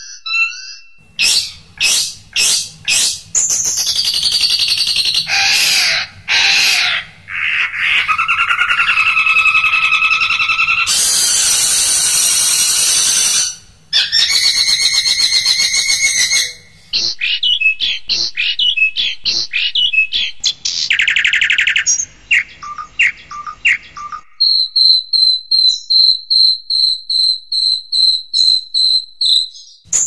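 Long-tailed shrike (cendet) singing a loud, varied song: sharp strokes, harsh buzzy notes and trills changing every second or two. It ends in a quick run of repeated high chirps.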